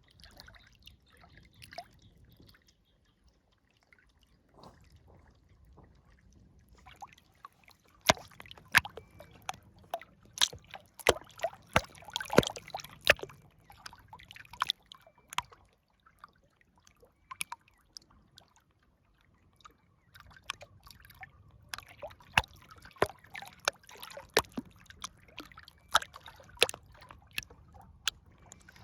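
River water trickling and lapping in irregular small splashes and drips, with quieter gaps between busier spells.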